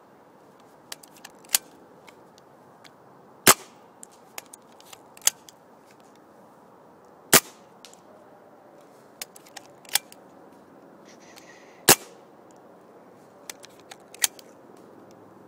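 Pump-action Dye Carter Buzzard paintball marker fired three times, a sharp crack about every four seconds, with smaller clacks in between as the pump is worked to cycle the next shot.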